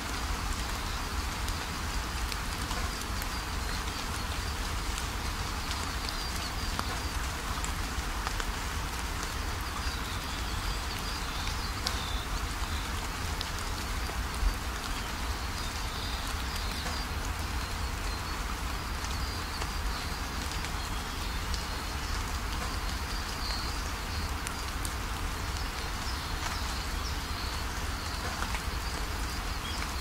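Nature-sound recording of steady rainfall, with birds chirping faintly in the background and one sharp tick about halfway through.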